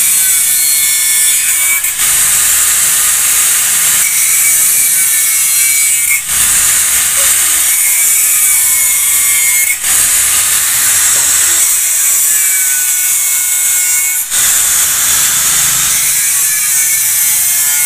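Electric angle grinder grinding metal on a motorcycle wheel hub, running steadily with a few short dips in level.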